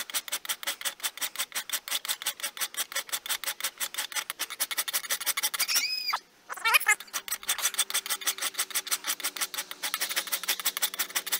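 Hand file rasping back and forth across a soft, unhardened forged-steel knife blade clamped in a vise, in quick, even strokes as it cuts a finger notch. The filing stops briefly about six seconds in, where a short high sliding tone is heard, then picks up again.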